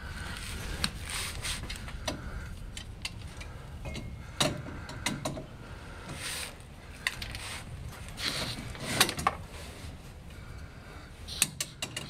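Scattered metallic clicks and knocks as hands work at the large nut on the torque-tube ball housing behind the transmission of a 1949 Chevy 3100, over a steady low hum.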